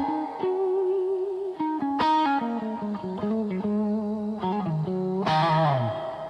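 Music: a distorted electric guitar playing sustained, wavering notes with effects, over a low bass line and a few sharp hits.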